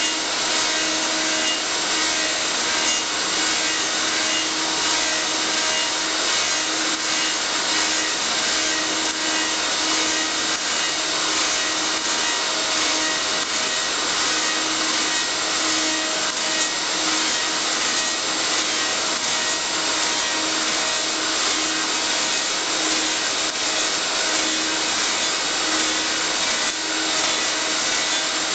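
Elio Valeri 4M/65E wood copy lathe machining wooden workpieces: a steady, dense hiss of wood being worked, with a steady hum from the machine underneath.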